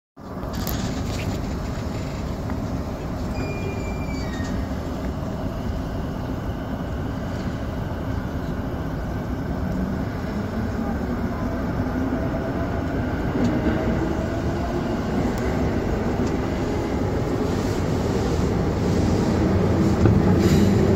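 Electric commuter train running through a tunnel, heard from behind the cab: a steady rumble of wheels on rail and traction motors, growing a little louder toward the end. The sound drops out for a moment at the very start.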